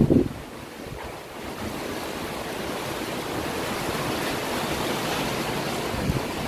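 Water sloshing and splashing in a plastic bucket as a plate is dipped and rinsed in it, over a steady rush of wind on the microphone.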